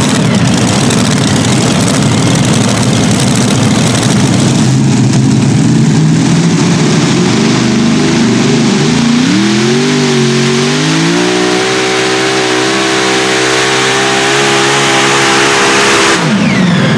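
Pulling tractor with supercharged V8 Hemi engines burning methanol, running at full power in a dense roar for the first half. Then the engines run at the start line: their pitch rises in steps about two-thirds of the way in and holds steady at high revs, before a falling pitch near the end.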